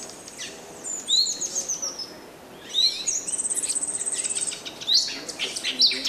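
Wild birds calling: a run of sharp, high chirps and short down-slurred notes, with a fast, very high trill lasting a little over a second just past the middle.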